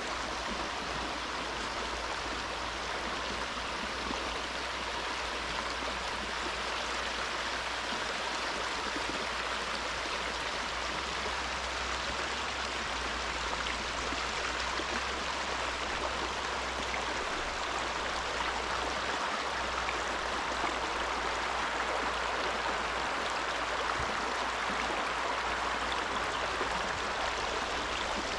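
Small rocky stream flowing steadily: a continuous rush of water that grows slightly louder near the end.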